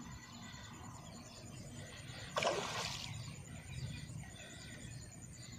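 A hooked fish splashing once at the water's surface, a short burst about two and a half seconds in, against a faint outdoor background.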